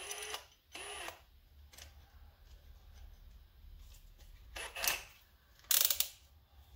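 Ryobi One+ HP brushless hammer drill's motor given two quick trigger blips, spinning up and down, to work the keyless chuck while the bit is changed. Then ratcheting clicks and a louder metal clatter near the end as the paddle bit is handled and fitted into the chuck.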